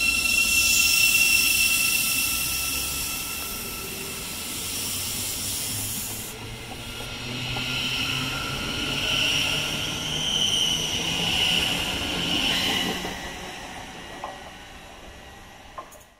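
Great Northern electric multiple-unit train pulling away from the platform at close range. Its motors give a steady high whine at first, followed by a rising and falling hiss of wheels on rail that fades as the train leaves.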